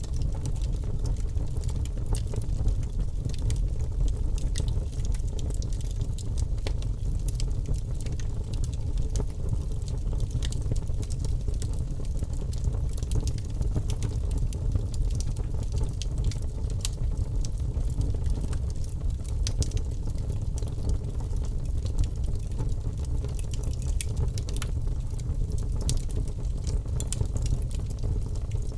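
Wood fire crackling in a fireplace: frequent small sharp pops and snaps, irregularly spaced, over a steady low rushing noise from the burning fire.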